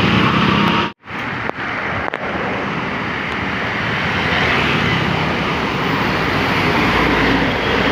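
Steady roadside traffic noise, a vehicle rushing past with no horn sounding. The sound cuts out for a moment about a second in.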